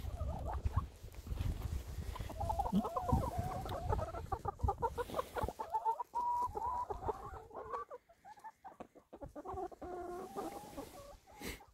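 A flock of young brown laying hens clucking softly around the listener, a run of wavering low calls from several birds at once, over a low rumble in the first few seconds.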